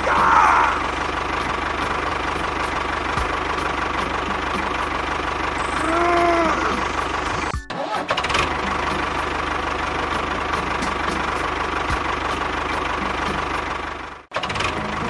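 Small motor of a DIY model tractor running steadily, with brief dropouts about eight and fourteen seconds in and a short arching tone about six seconds in.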